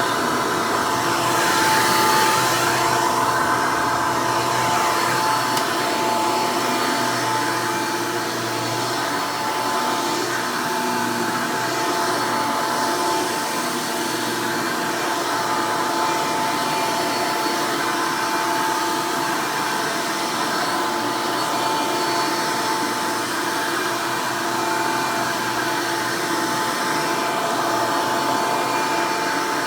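Hoover Elite upright vacuum running steadily, its direct-air motor and fan giving a continuous whine with a steady high tone over a rush of air, briefly louder about two seconds in.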